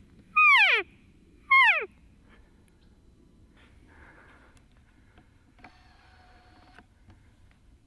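Elk cow calls: two loud nasal mews about a second apart, each sliding steeply down in pitch. About six seconds in comes a faint, steady, pitched call lasting about a second.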